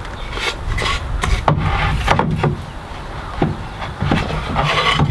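Pine boards being handled and fitted into an aluminium door frame: a series of wooden knocks and clacks with boards scraping against each other and the frame.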